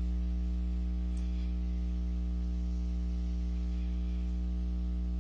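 Steady electrical mains hum with its overtones and a faint hiss underneath.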